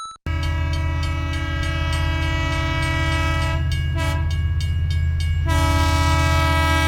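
Animated train's horn sounding one long, steady chord over the low rumble of the train running past, starting abruptly about a quarter second in. For about two seconds near the middle some of the horn's notes drop out, then they return.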